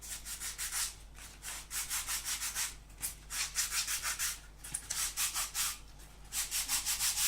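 Quick back-and-forth rubbing on a painted EPO foam plane part as it is smoothed down, about four to five hissy strokes a second in several runs with short pauses; the rubbing is taking some paint off the foam.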